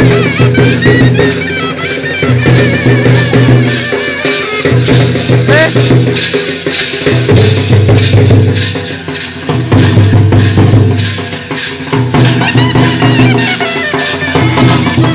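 Traditional folk music with steady drumming and rattling percussion, and a wavering high melody line near the start and again near the end.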